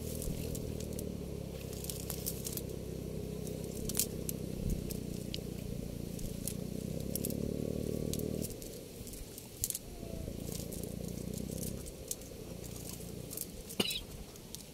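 Crackling and rustling of a fine nylon fishing net being pulled apart and picked over by hand, with scattered small clicks. A steady low motor hum runs underneath and drops away about two-thirds of the way through.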